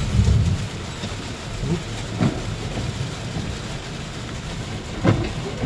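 Steady rain falling on a vehicle's roof and windshield, heard from inside the cab, over a low rumble, with brief knocks about two seconds in and again about five seconds in.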